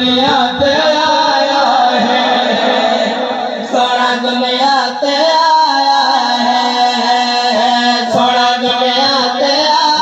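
A man singing a devotional Punjabi qasida through a microphone, with long held, wavering notes.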